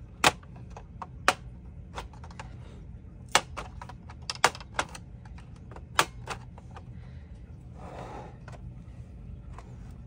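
Plastic snap clips of a Dell laptop's bottom case cracking loose as it is pried open with a pry tool: sharp, irregular clicks and snaps, the loudest two near the start.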